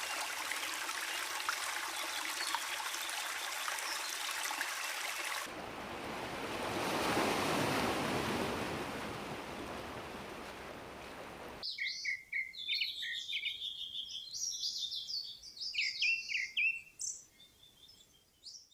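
Rain pattering with fine drops ticking, cut after about five seconds to a rushing sound of moving water that swells and fades, then about twelve seconds in to birds chirping and singing in quick, high calls.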